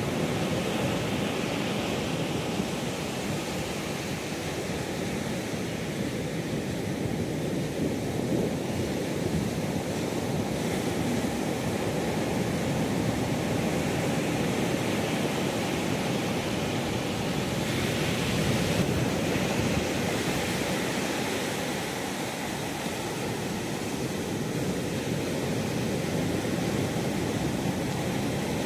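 Steady rushing noise of wind and sea water aboard a fishing boat at sea, mostly low in pitch, with a little more hiss for a couple of seconds past the middle.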